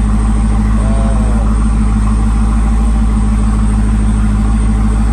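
Jeep Grand Cherokee Trackhawk's supercharged 6.2-litre V8 idling steadily.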